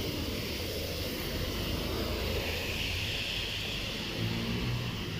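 Traffic on a rain-soaked road: a steady low engine rumble with tyres hissing on wet asphalt, the hiss swelling about halfway through as a car goes by.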